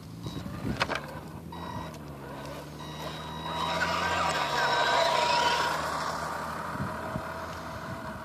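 Electric drive motor and gears of a radio-controlled scale golf cart whining steadily. The sound grows loudest about halfway through as the cart comes down toward the camera, then fades as it drives away. A couple of sharp clicks near the start.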